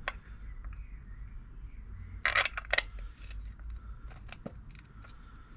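Metal hand tools and parts clinking and knocking as they are handled, with a louder cluster of two or three sharp metallic clinks about halfway through.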